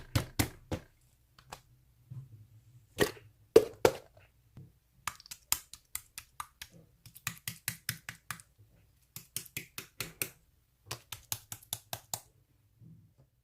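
Sharp clicks in irregular clusters of several at a time, over a faint low hum, stopping a little before the end.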